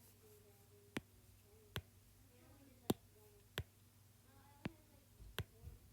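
Fingernail taps on the iPad Pro's glass touchscreen: six sharp, light clicks at uneven intervals of about a second, as apps are tapped to delete them.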